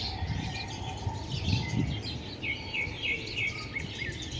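Several small birds chirping and twittering, with a run of about five quick repeated notes in the middle, over a low rumble.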